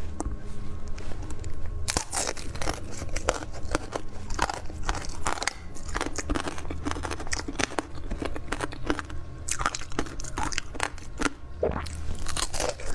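Close-miked crunching and chewing of food, with dense, irregular crackling bites starting about two seconds in.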